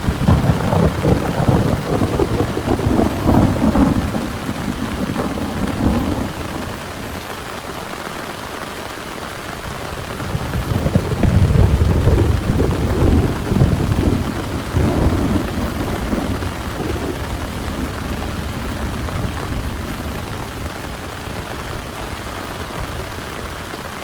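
Heavy rain falling steadily, with two long rolls of thunder: one at the start lasting several seconds, and another building about ten seconds in and fading a few seconds later.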